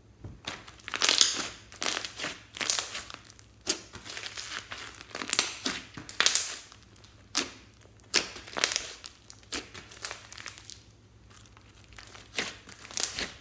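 Pink glossy slime mixed with floam beads being squeezed and kneaded by hand, giving irregular bursts of crackling and squishing a second or so apart.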